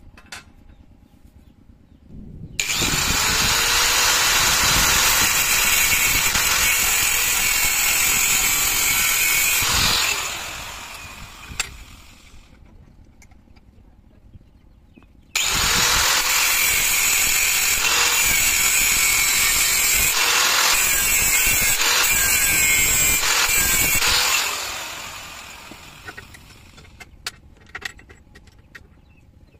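Angle grinder cutting a steel plate held in a vise, in two runs: each time the motor spins up, cuts for about seven to eight seconds, then winds down. A few light metal clicks between the runs and near the end.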